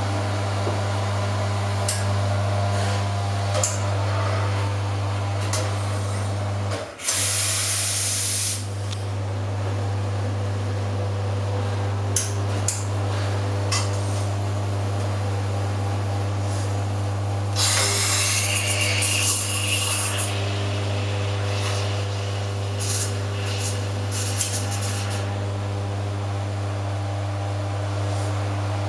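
Pierro Silver three-group espresso machine running, its pump giving a steady low hum while it extracts espresso and back-flushes one group head with cleaning chemical. About seven seconds in the hum breaks off briefly and a loud hiss follows, typical of a back-flush cycle venting pressure.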